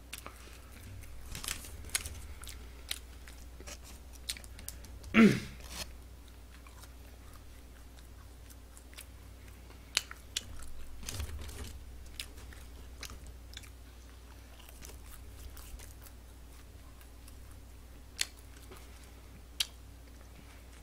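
Close-miked chewing of a McDonald's burger: scattered wet mouth smacks and clicks. About five seconds in comes one short, loud throat sound that drops in pitch.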